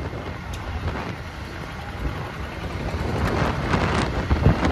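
Wind buffeting the microphone on a moving motorcycle, over a low rumble of road and engine noise that grows louder in the second half.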